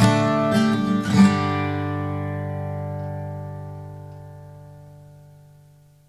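Background music on acoustic guitar: a few strummed chords in the first second and a half, then a final chord left ringing and slowly dying away to silence.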